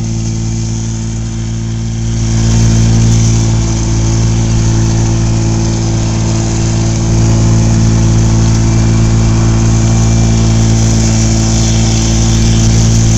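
A small boat motor running steadily under way, with the rush of wind and water over it; the motor gets louder about two seconds in and again about seven seconds in, as if throttled up.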